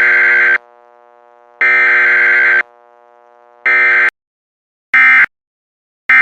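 Emergency Alert System SAME digital data bursts: loud, screechy, two-pitch data tones in repeated bursts. The first two last about a second each and the later ones are short, about a second apart, the end-of-message code that closes the alert.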